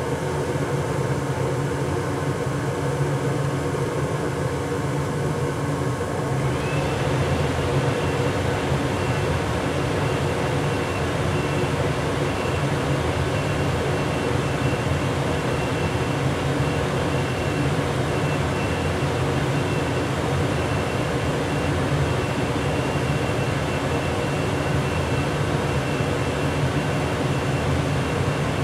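Furnace running with a steady mechanical hum and rush; about six and a half seconds in, the sound grows fuller and a thin high whine joins and holds.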